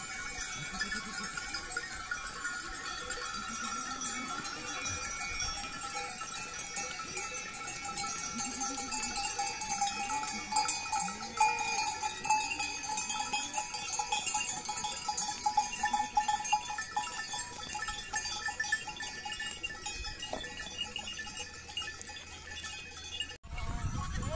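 Bells on a flock of sheep jingling and clanking without a break, with sheep bleating now and then underneath. The sound stops abruptly about a second before the end.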